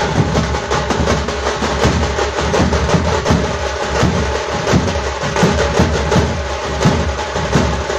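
Thara thappattai drum troupe playing together: fast, dense stick strokes on several drums, continuous and loud.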